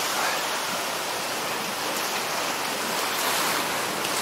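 Sea surf washing over rocks: a steady rush of foaming water.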